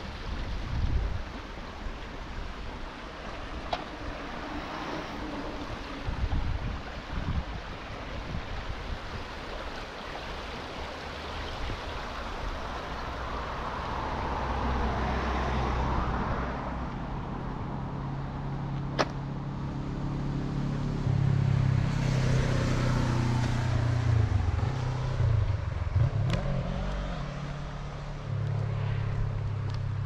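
Street traffic with wind buffeting the microphone in the first few seconds. About halfway through a car passes, its tyre noise swelling and fading. Then a vehicle engine runs close by with a steady low hum through the second half, and two sharp clicks stand out.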